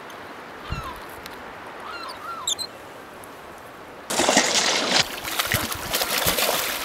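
Hooked brown trout thrashing and splashing at the water's surface as it is reeled in: a loud rush of splashing starts suddenly about four seconds in. Before it, a quiet river background with a few short bird chirps.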